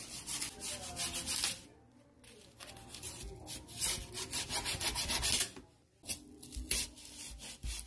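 A kitchen knife slitting packing tape and scraping along a cardboard box, in three stretches of quick scraping strokes with short pauses between.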